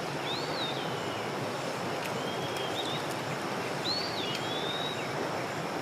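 A songbird repeating a short whistled phrase about every two seconds, over the steady rush of a flowing creek.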